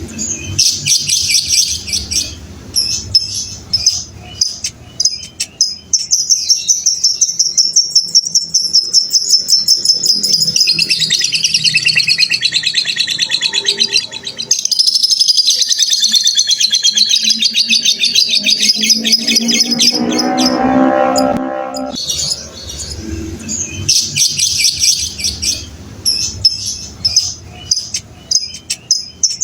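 Lovebird singing its long 'ngekek' song: extended runs of very fast, high-pitched chattering trills lasting several seconds at a time, with a brief lower call a little past two-thirds of the way through.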